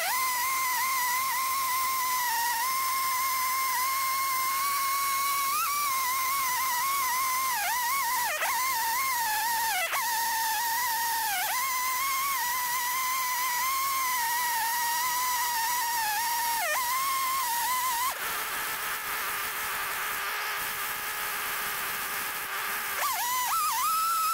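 Chainsaw mounted in an Alaskan chainsaw mill running at full throttle, ripping a slab lengthwise from a walnut log. Its high whine dips briefly several times as the cut loads the saw. About three quarters of the way through, the pitch drops back to a lower, quieter run, then climbs to full revs again near the end.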